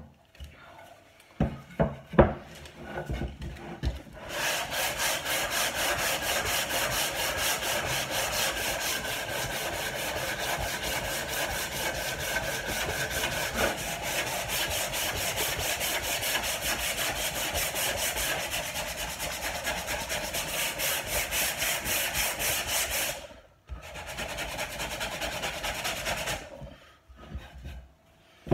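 Sandpaper rubbed by hand over an old wooden table top in rapid back-and-forth strokes, sanding off the discoloured surface layer. The strokes run steadily for about twenty seconds, stop briefly, then go on again for a few seconds. A few light knocks come at the start and near the end.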